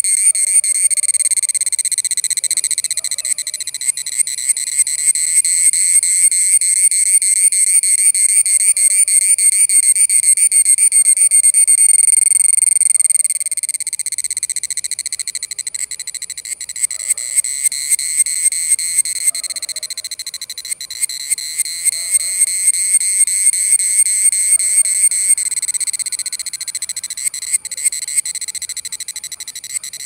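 Cicada singing close by: a loud, shrill, rapidly pulsing buzz that swells and fades in long waves, dipping about 13 seconds in and building up again twice.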